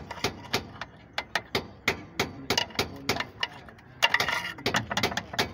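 Sharp metallic clicks and taps from hand tools on a truck's drum-brake parts, about three a second and unevenly spaced, with a short rattling scrape a little after four seconds in.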